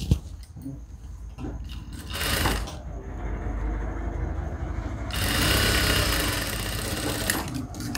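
JACK industrial sewing machine stitching a seam through layered cotton fabric. It starts about three seconds in, gets louder about five seconds in, and stops shortly before the end. A sharp click comes at the very start, and the fabric rustles just before the machine starts.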